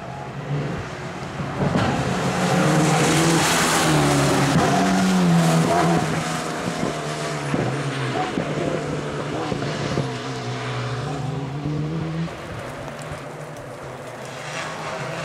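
Rally cars driving hard past on a wet tarmac stage: engines revving, their note rising and falling with the throttle and gear changes, over the hiss of tyres on standing water. Loudest a few seconds in, easing later, with another car approaching near the end.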